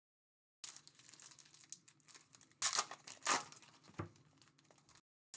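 Plastic card-pack wrapping crinkling and being torn open, with a few sharper rips about three seconds in.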